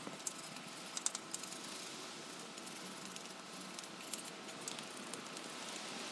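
Light clicks and rattles of hands and tools working over an engine during cleaning, above a steady hiss. There is a small cluster of clicks about a second in and another around four seconds.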